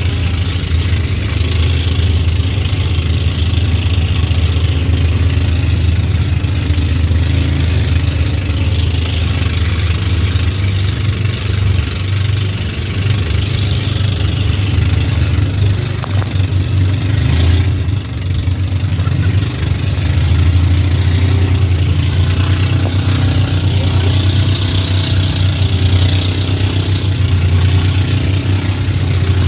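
Outrigger boat's (bangka's) engine running steadily at cruising speed, with the hiss of spray and water rushing past the hull.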